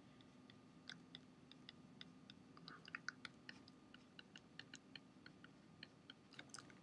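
Faint, irregular clicks and taps of a pen stylus on a tablet as an equation is handwritten, over a faint steady hum.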